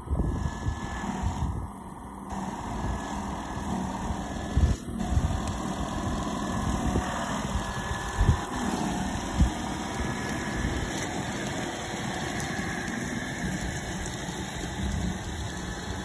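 Remote-controlled tracked snow blower running as it clears snow: a steady machine drone with a faint, slightly wavering whine, and a few brief knocks partway through.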